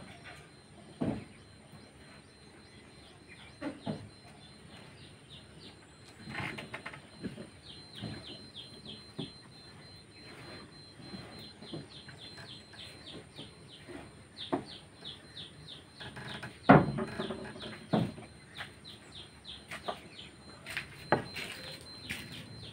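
Small glazed ceramic jars knocked and set down one by one on a wooden plank table: a series of separate sharp knocks, the loudest about two-thirds of the way through. Birds chirp in quick runs of short high notes in the background.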